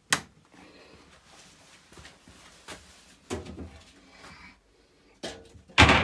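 Handling knocks and clicks: a sharp click just after the start, a clunk a little after halfway, and a louder knock near the end.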